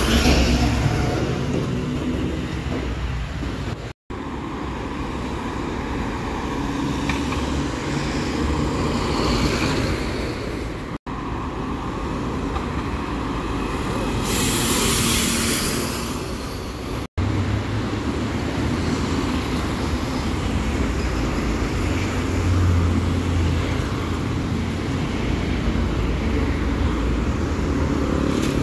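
City buses and street traffic passing: bus engines running and tyres on the road, heard in several short takes cut together, with brief sharp breaks in the sound. About halfway through a hiss rises and fades over a couple of seconds.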